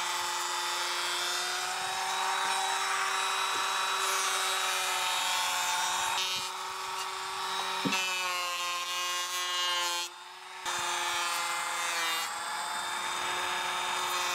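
Electric hand planer running at steady speed as it shaves the bottom edge of a timber skirting board, scribing it to fit the floor. The motor gives a steady whine; the sound drops out for a moment about ten seconds in and then resumes.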